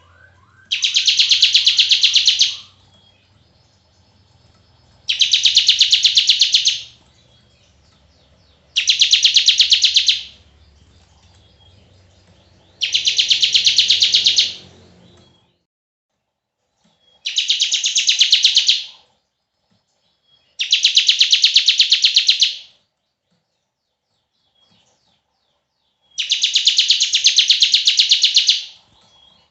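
Bar-winged prinia (ciblek) giving its 'bren' song: a very fast, high, buzzy trill in bursts of about two seconds, repeated seven times with short pauses between. A faint low hum runs under the first half.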